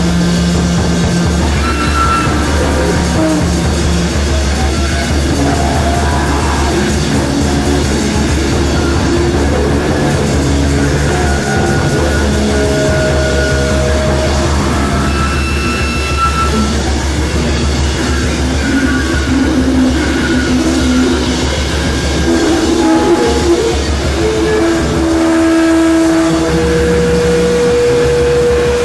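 Loud, dense free-improvised noise music from electric guitars: a continuous low distorted drone with scattered held tones appearing and fading above it.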